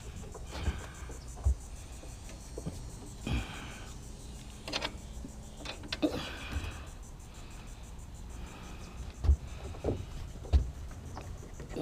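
A load of bicycles being tied down: a strap or rope pulled and cinched tight, with scattered clicks, short rustles and a few knocks, the loudest two near the end.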